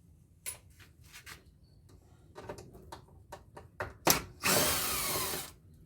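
Power drill run in a burst of about a second near the end, backing out a screw while an air-conditioner blower is stripped down. Light clicks and knocks of handling the metal parts come before it, with one sharp knock just before the drill starts.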